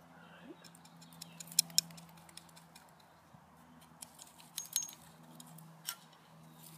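Scattered sharp crackles and clicks of a freshly dug garlic bulb being handled, its dry, disintegrating outer skin and clinging soil crumbling, with a cluster near the start and another a little after the middle, over a faint steady low hum.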